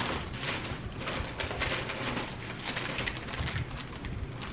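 Plastic snack packaging and a plastic bag crinkling and rustling as packages are handled and pushed into a full bag, a rapid run of small crackles.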